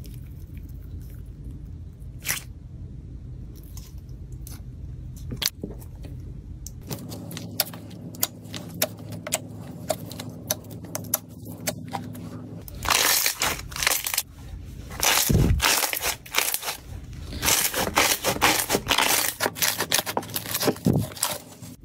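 Slime being squeezed, stretched and kneaded by hand, making sticky clicks and small pops. The clicks are sparse at first and come thick and loud through the second half.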